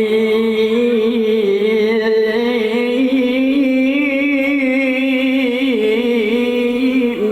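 A man's voice reciting the Qur'an in melodic tilawah style, holding one long ornamented note whose pitch wavers up and down. The note breaks off near the end.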